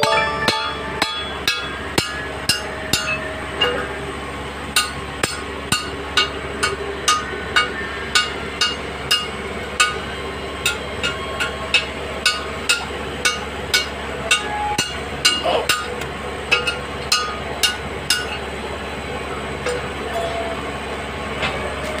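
Music with a steady ticking beat about twice a second and short high notes that change in pitch, over a low steady hum.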